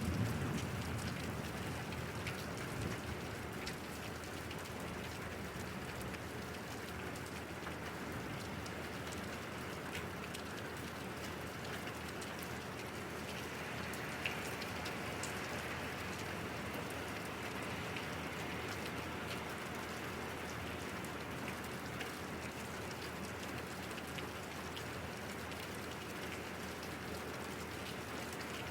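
Steady rain falling, with scattered individual drops ticking. The tail of a low thunder rumble fades out in the first second or so.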